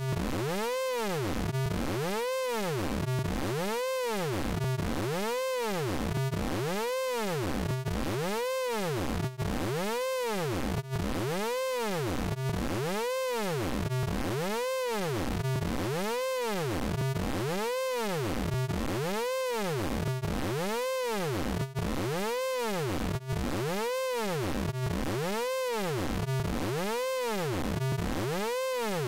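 Synthesized sound effect from the Orange Vocoder plugin: a buzzy, pitched electronic tone that sweeps up and down in an even, repeating cycle about once every second, with a few very short dropouts.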